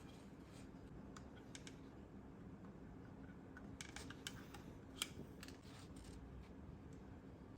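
Faint, sharp clicks of small hard parts being handled: a cluster about four seconds in and one sharper click about five seconds in, over a low steady hum.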